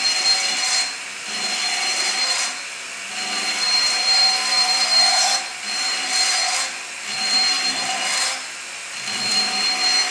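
Right-angle porting tool spinning a carbide burr, with a high steady whine, while the cutting noise swells and fades over about six light sweeping strokes across a two-stroke cylinder's boost port. The burr head is angled to the wall, the right technique, and it cuts smoothly without jumping or chattering.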